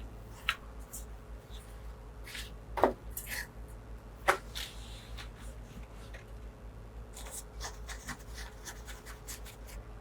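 Kitchen handling sounds: scattered light clicks and taps of utensils and dishes, with two louder knocks about three and four and a half seconds in and a run of quick small clicks near the end, over a low steady hum.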